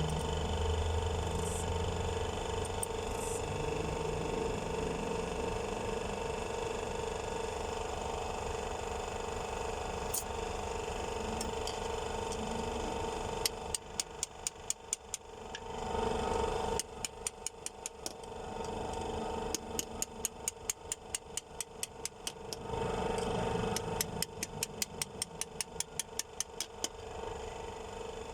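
A ratchet wrench being worked in four short runs of rapid clicks, starting about halfway through, over a steady mechanical hum.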